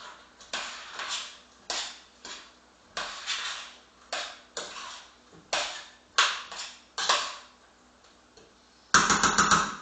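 Kitchen utensil clattering and scraping against a cooking pan: about a dozen separate knocks spread through, then a quick run of rapid clatters near the end.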